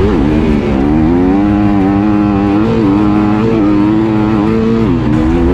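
Yamaha WR dirt bike engine running under throttle, its pitch rising and falling as the rider works the throttle. It dips briefly just after the start and again near the end.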